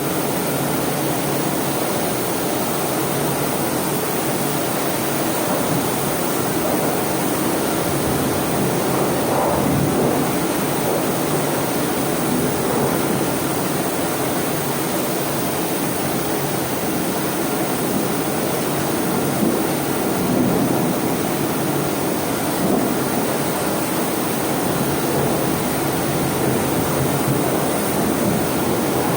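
High-pressure water jet hosing down a ship's steel forecastle deck: a loud, steady rushing spray.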